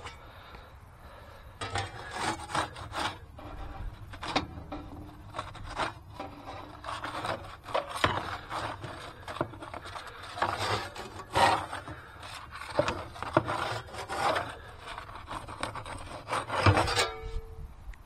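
Irregular rubbing and scraping with occasional knocks, in uneven strokes, loudest near the end, where a short steady ringing tone closes the run.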